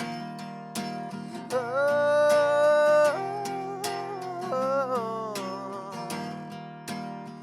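Song with strummed acoustic guitar and a wordless sung line, holding one long note from about a second and a half in, then sliding to lower notes.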